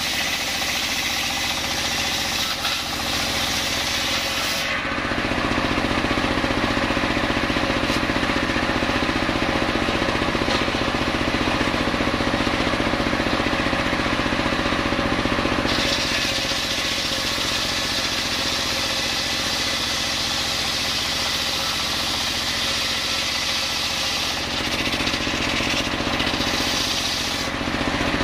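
Homemade engine-driven circular saw bench running while its blade rips lengthwise through a coconut log. About five seconds in the sound turns deeper and a little louder, and it changes back after about sixteen seconds.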